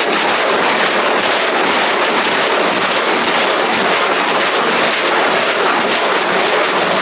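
Rockets launching one after another from a truck-mounted Thunderbolt-2000 multiple rocket launcher: a continuous, even rushing noise of rocket exhaust, with no break or separate bang between launches.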